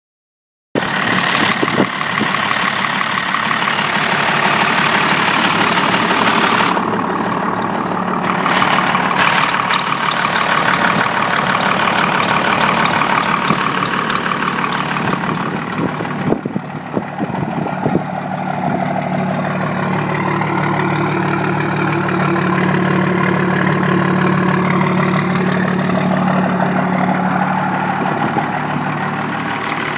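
12-valve Cummins 5.9-litre inline-six diesel idling, starting abruptly about a second in, its tone changing a little past halfway.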